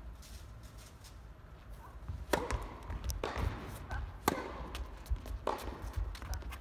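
Tennis ball being struck and bouncing on an indoor court: four sharp hits about a second apart starting a little past two seconds in, with brief squeaks between them.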